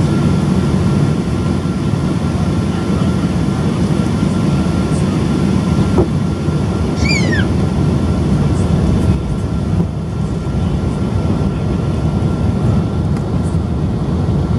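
Steady cabin noise of a Boeing 777-200 airliner descending, heard from a window seat over the wing: the low rumble of its GE90 engine and the rush of air past the fuselage, with a faint steady whine. A short high sound slides down in pitch about halfway through, and the noise eases slightly soon after.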